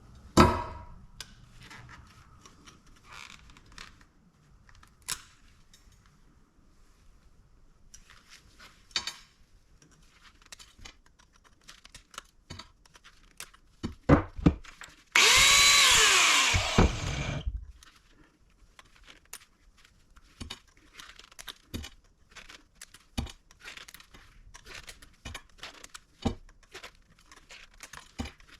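Scrap brass and metal being handled, with scattered clinks and knocks and a loud knock at the start. About halfway in, a handheld power tool runs for about two seconds and then spins down.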